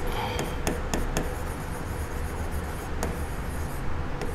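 Writing on a board: irregular light taps and scratches of a pen, over a steady low hum.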